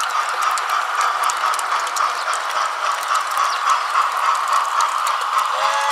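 Garden-railway model train running along the track over a bridge: a steady whine with rapid, irregular clicking from the wheels on the rails.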